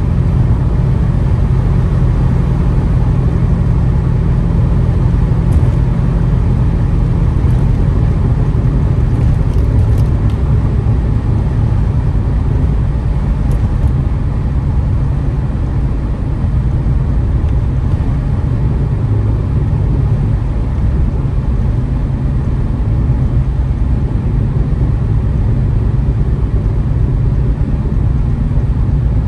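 Catless, straight-piped 2015 Ford Taurus Limited cruising at a steady speed: a continuous low exhaust drone mixed with road noise, with no revving or pops.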